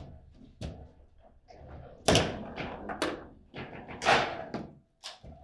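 Table football in play: the ball knocked about by the players on the rods, with a string of sharp clacks and knocks. Two hits stand out as the loudest, about two seconds in and about four seconds in.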